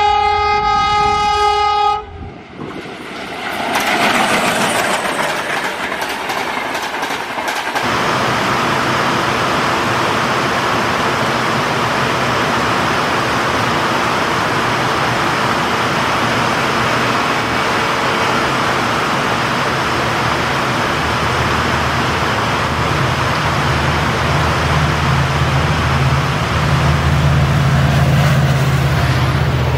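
A locomotive horn blast of about two seconds, then the steady hiss of extremely heavy rain. About two-thirds of the way in, the low engine rumble of an approaching WDP4D diesel locomotive builds under the rain, loudest as it passes near the end.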